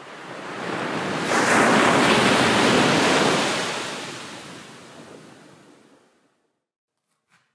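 Surf on a sandy beach: the rush of a wave washing in swells over the first couple of seconds, holds, then fades away about six seconds in.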